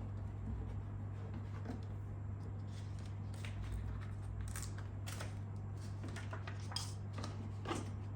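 Short scrapes and rustles from hand work on a vinyl decal and plastic fairing, coming more often in the second half, over a steady low hum.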